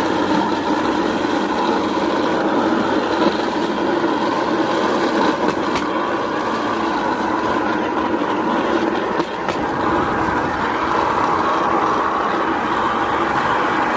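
Small rail trolley rolling along the railway track, a steady rumble and rattle of its wheels on the rails that dips briefly about nine seconds in.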